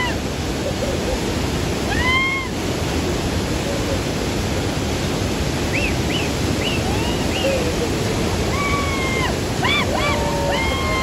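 Steady rush of water from the Niagara River rapids and falls, with short high-pitched cries rising and falling over it several times, clustered in the second half.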